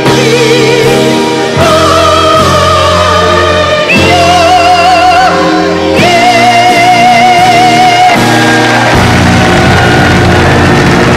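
A singer with a wide vibrato, in a classical, operatic style, holds long notes over sustained instrumental accompaniment. The voice ends on a long held note about eight seconds in, and the accompaniment carries on with held chords.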